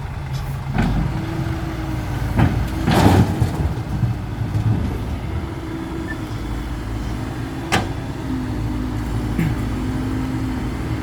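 Diesel engines running steadily at an excavator loading a dump truck, with a few short knocks and a louder crash about three seconds in.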